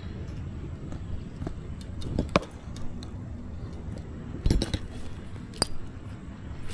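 A handful of sharp clicks and clinks, two a couple of seconds in, a quick cluster about four and a half seconds in and one more near the end, over a steady low rumble of wind on the microphone.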